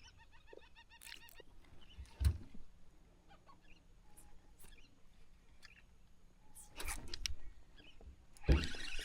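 Seabirds calling in a quick series of short, repeated cries during the first second or so. Dull low knocks about two seconds in and again near the end are the loudest sounds.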